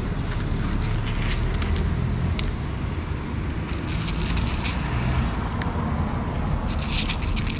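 Cats crunching dry kibble: quick, small, crisp crackles in clusters over a steady low background rumble.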